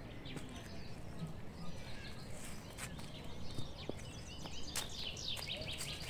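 Footsteps rustling through a thick layer of dry fallen leaves, an irregular run of crackles, with small birds chirping high above them, a quick cluster of chirps near the end.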